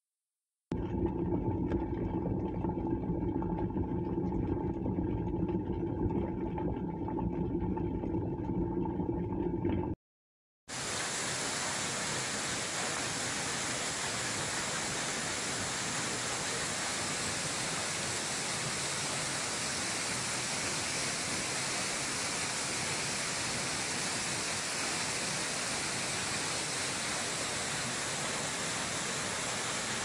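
Two water sound effects. For the first nine seconds a steady, low water sound, most likely water boiling. After a short break, a waterfall's steady rush of falling water.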